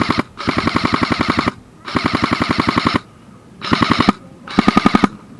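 Airsoft rifle firing on full auto in a string of bursts, each a rapid even rattle of shots: two longer bursts of about a second each, then two shorter ones near the end.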